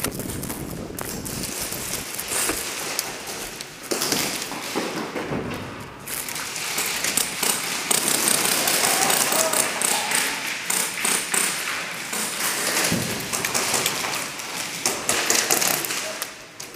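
Players on the move in an airsoft game: a dense clatter of footsteps, gear and many sharp taps and thuds, busiest in the second half, with some voices shouting.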